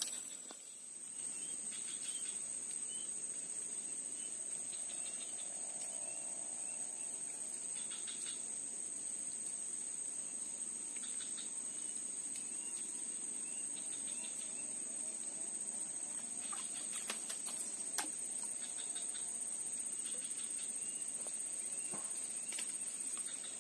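Steady high-pitched chorus of insects shrilling without a break, with a few short chirps every few seconds and a few sharp clicks about three quarters through.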